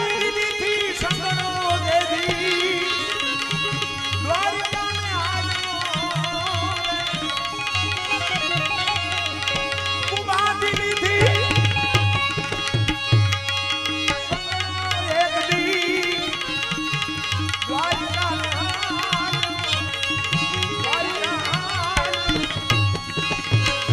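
Music accompanying a Gujarati devotional bhajan: a hand drum keeps time with regular low beats under a melodic line of sliding, bending notes over a steady sustained drone.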